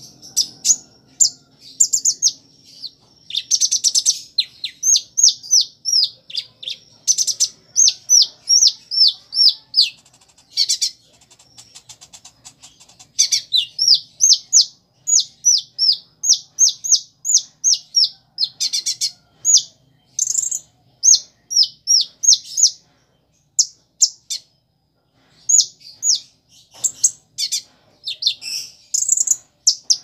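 Caged kolibri ninja sunbird singing: runs of quick, high, downslurred chirps, two or three a second, broken by short pauses, with a longer pause about three-quarters of the way through.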